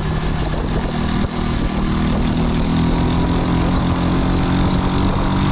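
Small motorcycle engines running at cruising speed, the engine note rising a little about halfway through, over a steady rush of wind and road noise.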